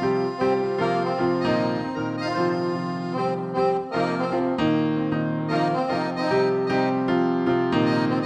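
Background music: sustained instrumental chords and a melody that move on steadily, with no break.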